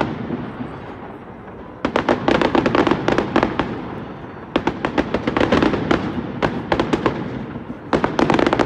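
Fireworks shells bursting into dense crackling, a rapid rain of sharp pops, in three waves: about two seconds in, about four and a half seconds in, and again near the end, each thinning out before the next.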